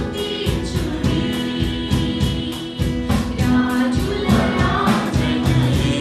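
Live worship song: a woman sings into a microphone over strummed acoustic guitar and keyboard, with a steady beat.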